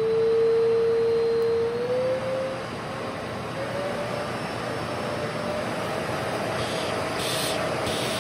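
PAWSPIK pet grooming vacuum's motor running with a steady whine over the rush of suction. The whine steps up in pitch twice, about two and four seconds in, as the suction level is raised. Near the end there are a couple of brief bursts of hiss.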